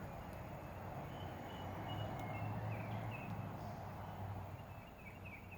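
Songbirds singing in the distance, short scattered chirps and phrases, over a steady low background rumble.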